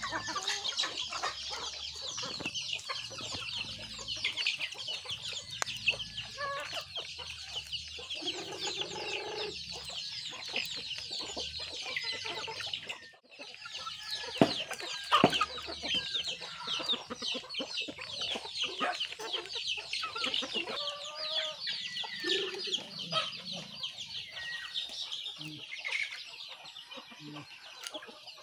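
A flock of chickens clucking and chirping as they feed, a dense, constant high chatter of short calls with scattered lower clucks.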